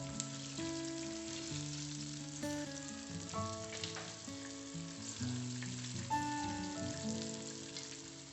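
Soft background music of sustained notes changing every half second or so, over the steady sizzle of chicken deep-frying in oil. It fades out gradually toward the end.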